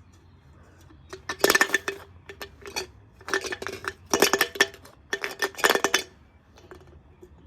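Washing machine rattling and clattering as it shakes violently and jumps, in four bursts of rapid metallic clatter about a second apart.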